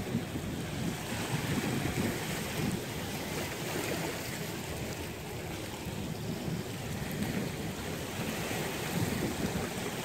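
Small waves of the Tagus estuary lapping gently and continuously on a pebbly, rocky shore, in soft swells.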